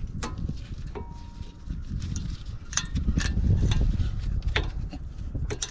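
Irregular small metal clicks and clinks of brake hardware being handled: a spring retainer clip being worked onto the inner front brake pad, over a low rumble.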